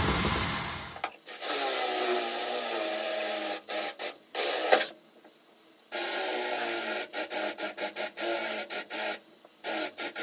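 Cordless drill boring through steel, running in several long pulls and then in many quick squeezes of the trigger, the motor pitch sagging and recovering as the bit bites into the metal.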